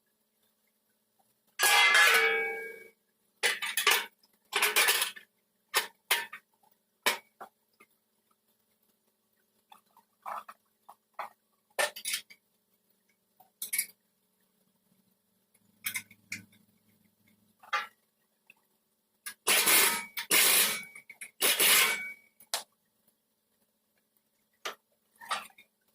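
Irregular bursts of metallic clinking and clatter, with silent gaps between them; the loudest come about two seconds in and again about twenty seconds in.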